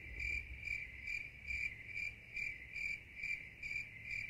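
Cricket chirping, a steady high chirp repeating a little over twice a second, switched in abruptly as a sound effect for an awkward, stumped silence.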